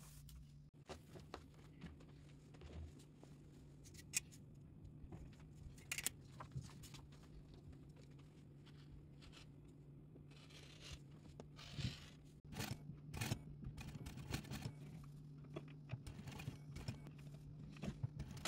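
Rotary cutter rolling through cotton corduroy on a cutting mat, a short rasping cut about ten seconds in, amid scattered clicks and rustles of fabric handling over a steady low hum.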